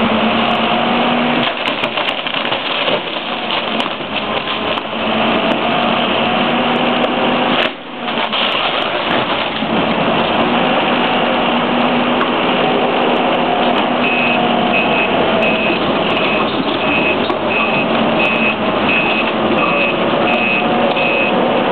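Excavator demolishing a wooden porch: its diesel engine runs under a steady din of crunching, cracking timber, with a brief lull about a third of the way in. Past the middle a backup alarm starts beeping, about three beeps every two seconds.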